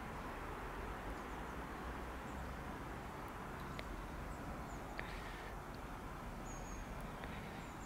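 Steady outdoor background hum with small birds chirping briefly now and then, and a couple of faint clicks.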